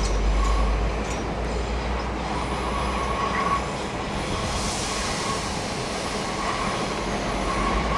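Class 455 electric multiple unit standing at the platform, a steady rumbling hum with a high whine that comes and goes.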